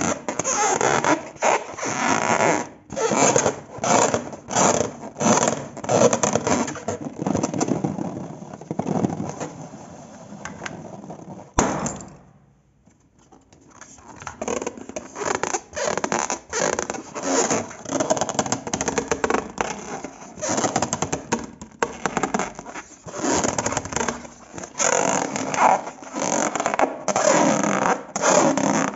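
Glossy slime being squished and worked by hand: irregular sticky squelches and crackly pops in quick succession, dropping out briefly just after the middle.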